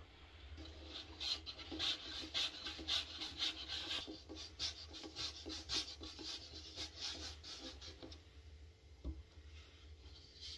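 Hands rolling and pressing a small piece of shekerbura dough on a wooden board, a quick run of soft rubbing strokes that dies away about eight seconds in.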